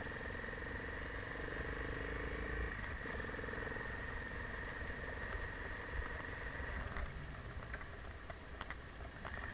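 Enduro motorcycle engine running at low speed while riding over snow, with a steady low rumble. About seven seconds in its note changes and drops away, and a few short knocks and clicks follow.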